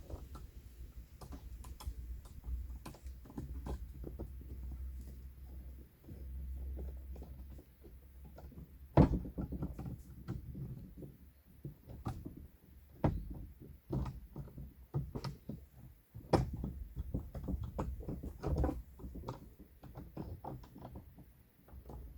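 Irregular knocks and clicks of hand work on a fence, with one sharp, loud knock about nine seconds in.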